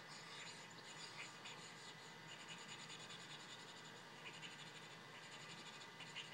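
Faint scratching of a marker on paper in quick runs of strokes, the drawing-and-colouring-in sound effect of a cartoon, heard through a TV's speaker; a little louder near the end.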